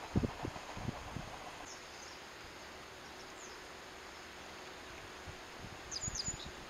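Quiet outdoor ambience: a few low thumps in the first second, then a steady faint hiss, with a quick run of short, high bird chirps near the end.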